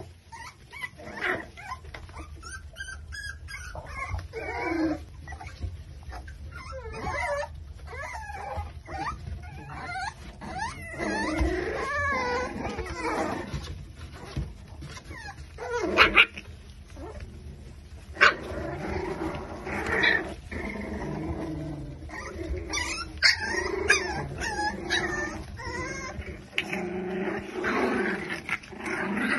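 A litter of five-week-old micro exotic bully puppies yipping and whimpering as they tumble over each other, in many short overlapping high cries. A couple of sharp knocks stand out about two-thirds of the way through.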